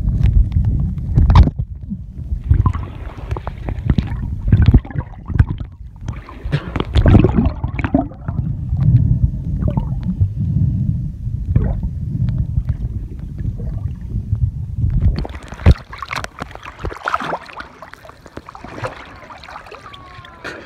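Muffled underwater sound of water moving around a swimmer's camera: a heavy low rumble with scattered knocks. About fifteen seconds in the camera breaks the surface and the rumble gives way to lighter splashing and open-air sound.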